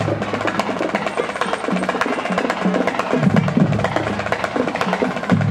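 Marching band drum line playing a fast cadence: rapid stick clicks and drum strokes, with low held notes from the band underneath.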